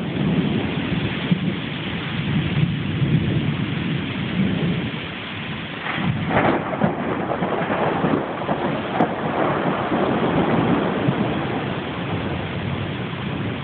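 Thunderstorm: rain falling steadily under a continuous low rumble of thunder, with a sharper surge about six seconds in.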